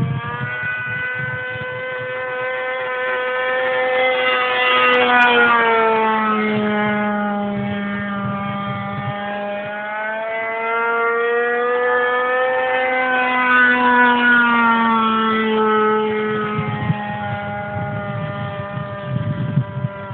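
Small SC40 two-stroke glow engine of a radio-controlled model airplane buzzing as it flies past twice. Its pitch rises as the plane approaches and drops away after each pass, loudest about five seconds in and again around thirteen seconds.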